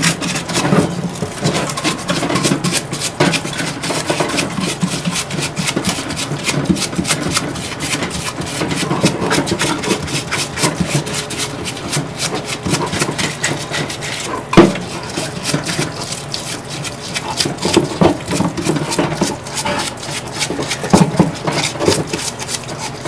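Solvent-fed bristle brush scrubbing a RedMax backpack blower's finned cylinder in a parts-washer solvent tank: rapid, irregular rasping strokes. One sharp knock comes about two-thirds of the way through.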